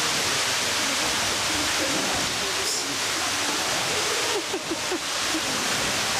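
A steady rushing noise like running water, with people's voices murmuring faintly beneath it and a few brief voice sounds about three-quarters of the way in.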